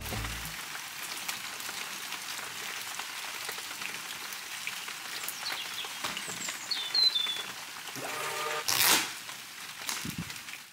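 Steady rain falling on a wet paved patio, an even hiss throughout, with a few short bird chirps about two-thirds of the way in. Near the end comes a brief, louder rustling swish.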